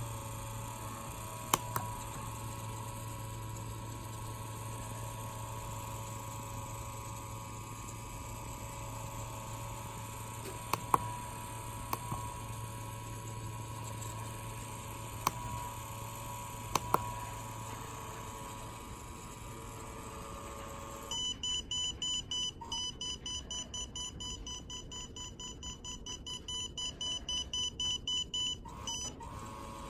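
A small DC fan motor runs with a steady hum, broken by a few sharp clicks. About two-thirds of the way in, the motor stops and a piezo buzzer starts beeping in quick short pulses for about eight seconds. The beeps come faster and slower as the ultrasonic sensor's measured distance changes: faster when closer.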